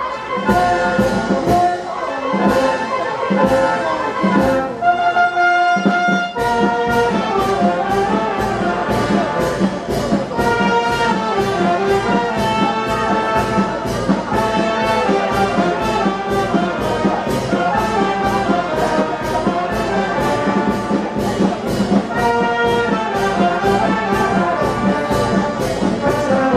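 Brass band music with a steady march beat, trumpets and trombones carrying the melody.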